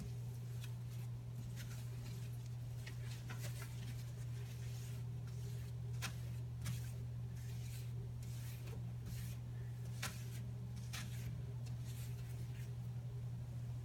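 Cleaning a table: scattered short scratchy rubbing sounds of wiping at a spilled, crimped-banana mess, over a steady low hum.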